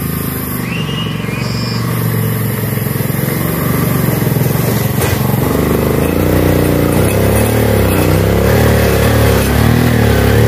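Small motor scooter engine labouring up a steep dirt climb under a heavy load. It runs steadily at first, then gets louder about six seconds in, its pitch rising and falling as the rider works the throttle.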